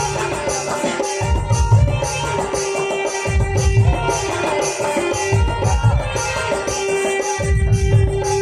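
Loud Indian folk-style music with fast drumming, a deep repeating bass beat and a long-held melody note.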